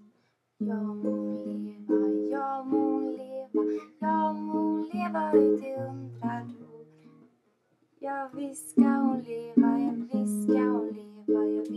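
Acoustic guitar played by hand: a slow run of picked chords and single bass notes, pausing briefly about two thirds of the way through before going on.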